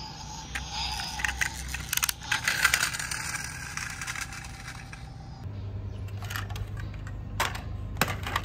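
Toy dump truck's small wheels rolling and rattling over rough stone paving, an irregular gritty run of clicks and scrapes that fades out after about five seconds. Near the end come a few separate sharp clicks of toy vehicles knocking together as they are handled.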